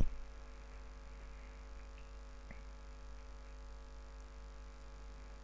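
Steady electrical hum: a low drone with a ladder of steady higher tones above it, unchanging throughout. A single sharp click right at the start.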